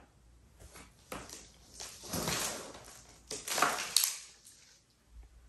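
Cardboard shipping box being opened by hand: its flaps pulled back and folded, giving several short scrapes and rustles of cardboard, the loudest ending in a sharp click about four seconds in.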